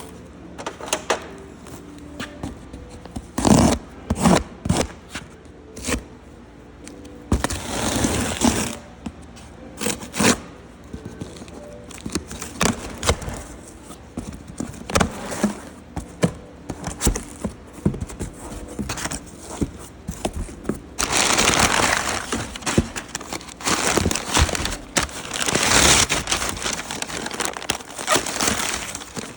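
Cardboard and plastic packaging crinkling and scraping, with scattered knocks and thuds as parts are handled; the rustling comes in longer, louder bursts during the last third.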